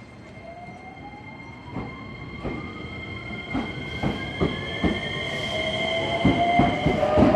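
Electric commuter train pulling away and gathering speed: its traction motors give a whine that rises steadily in pitch, while the wheels click over rail joints faster and faster and the sound grows louder.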